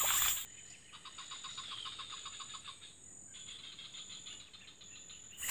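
Forest ambience: a quiet, rapid chirping call from a bird or insect, about eight short pulses a second, running for a second and a half and then stopping. A louder passage cuts off about half a second in.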